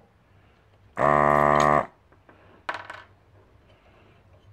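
Electric desoldering gun's vacuum pump buzzing steadily for just under a second, about a second in, as it sucks molten solder off a capacitor's leads on a circuit board. A short clatter follows about a second and a half later.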